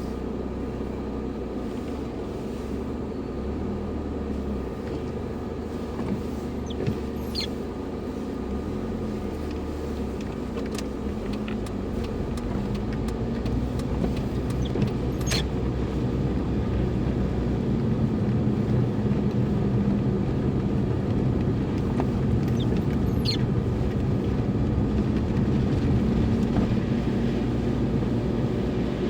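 Car engine and tyre noise heard from inside the cabin while driving. It grows a little louder and higher as the car picks up speed from about halfway. A brief sharp sound comes about every eight seconds.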